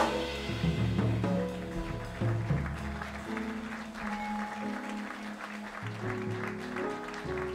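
Small jazz band playing live: vibraphone struck with soft mallets, with piano, upright bass and a drum kit's cymbals.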